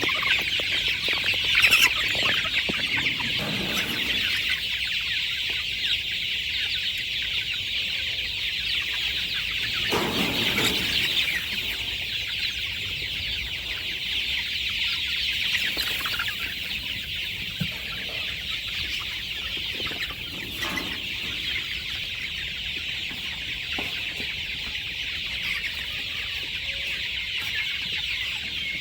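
A flock of chickens clucking, with a dense, steady high-pitched chatter of calls and a few louder clucks scattered through.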